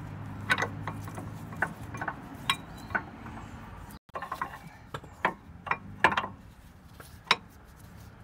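New brake pads being slotted into a van's front brake caliper carrier bracket: a dozen or so sharp metal clicks and clinks as the pad backing plates and clips knock against the steel carrier.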